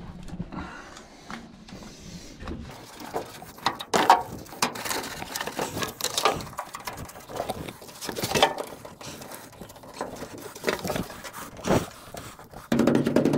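Handling noise from a rubber door weatherstrip being worked by hand along a truck cab's door opening: irregular rustles, scrapes and light knocks, with a louder rustle near the end.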